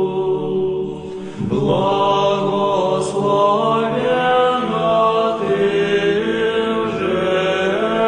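Slow vocal chanting in the Byzantine style: a melodic line of long held notes sung over a steady drone note. A new phrase begins about one and a half seconds in.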